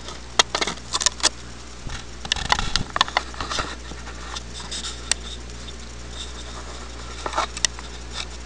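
Handling noise from a plastic rear-view mirror dash camera being held and turned in the hands: a run of light clicks, taps and scrapes, busiest in the first four seconds and sparser after, over a steady low hum.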